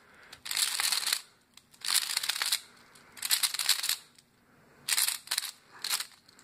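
Plastic clicking and rattling of a new stickerless QiYi Pyraminx being turned by hand, in five short spells of quick turns about a second apart; the puzzle is still dry and needs lube.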